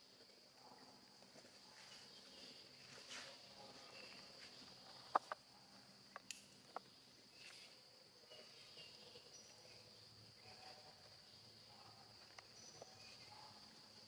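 Quiet forest ambience: a steady high-pitched insect drone, with a few sharp clicks about five to seven seconds in.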